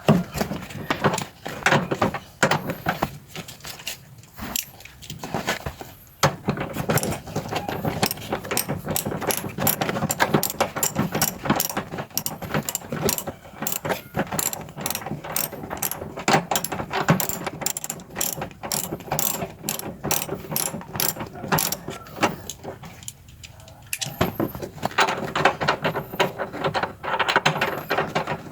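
Ratchet wrench clicking rapidly in runs while a 17 mm bolt on the seatbelt retractor is undone, with a brief pause near the end.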